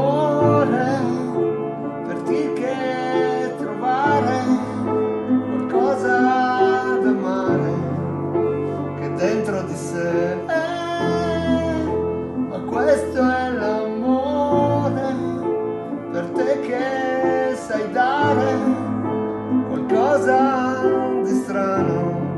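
A man singing a slow melody to his own upright piano accompaniment, held chords changing every couple of seconds.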